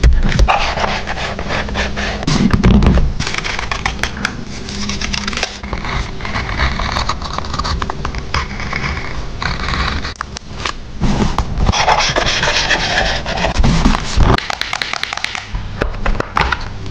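Paper and stickers being handled close to the microphone: rustling and scraping with many small clicks and taps.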